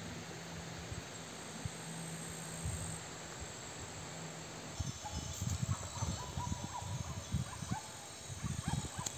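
Flock of sheep bleating, starting about five seconds in, over scattered low thumps.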